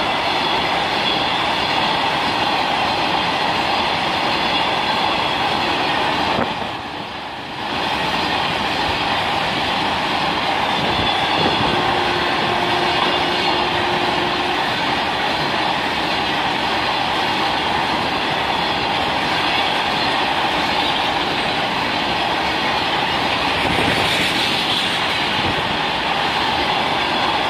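Freight train of loaded BTPN petrol tank wagons rolling past, its steel wheels making a loud, steady running noise on the rails. The noise dips briefly about seven seconds in.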